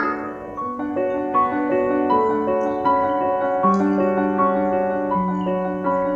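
Background music: a keyboard melody of held notes over a sustained lower note.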